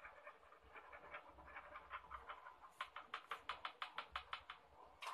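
A dog panting fast, in short, even breaths that grow louder and more regular for a couple of seconds past the middle.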